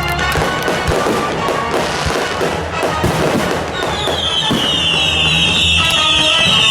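Fireworks crackling and popping over music. From just past halfway, a high whistling tone slowly falls in pitch.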